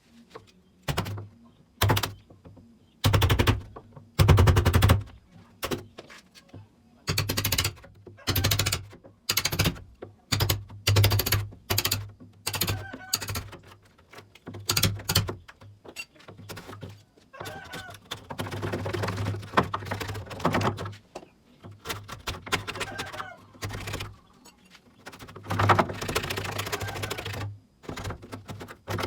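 Tool work on a wooden door for a lock fitting: a long run of short, loud bursts of rattling, one every second or so, then longer stretches near the middle and near the end.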